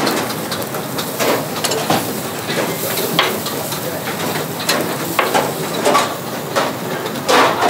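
Chicken breasts sizzling steadily on a hot grill, with scattered clicks and knocks of kitchen utensils.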